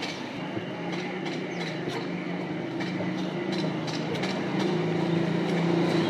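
A motor running with a steady low hum that grows louder near the end, with scattered light clicks over it.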